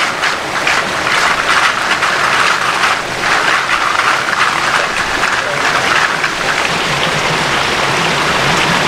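Water from a broken fire-suppression water main rushing up out of the ground: a loud, steady hiss.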